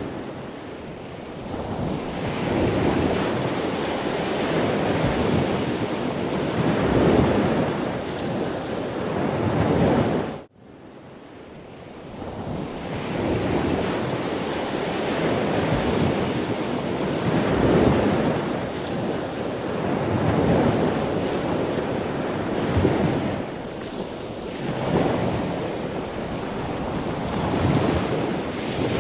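Ocean surf: waves breaking and washing through, swelling and fading every few seconds, with a rush of wind. The sound cuts out abruptly about ten seconds in, then comes back and builds again.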